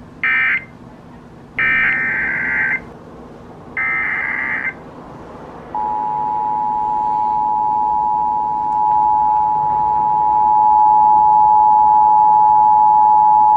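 Emergency Alert System signals over the radio: three short screeching digital data bursts, then about six seconds in the steady two-tone attention signal starts and holds, announcing an emergency alert.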